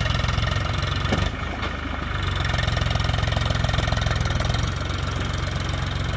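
Diesel tractor engine running steadily with a fast, even chugging beat while the tractor hauls a heavily loaded sand trolley along a muddy track.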